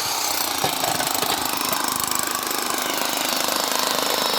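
Construction power tool running steadily with a fast, even hammering rattle.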